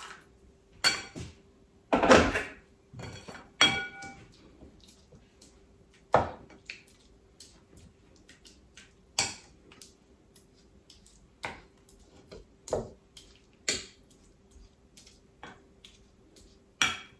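Kitchen utensils and dishes clinking and knocking at irregular intervals, a few strikes ringing briefly. The loudest knocks come about two seconds in.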